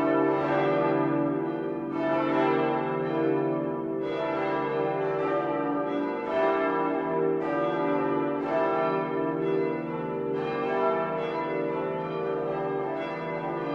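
Full peal of church bells: several large bells ringing together, their strokes overlapping in a dense, lasting ring, with a new stroke about every second.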